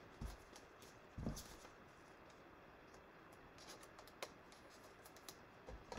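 Faint handling of trading cards and a foil card pack by gloved hands, close to silence: two soft taps about a second apart near the start, then scattered light clicks and rustles.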